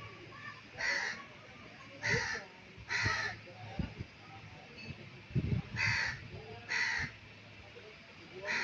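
Harsh cawing calls, typical of crows, five in all: three about a second apart, a pause, then two more. A low thud comes about five and a half seconds in.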